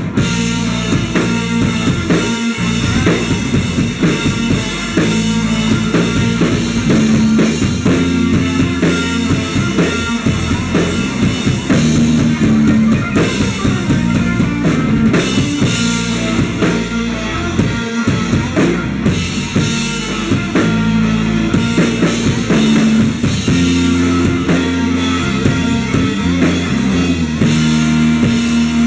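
Live rock band playing: a full drum kit with bass drum and snare under electric guitars and bass guitar, the chords changing every second or two.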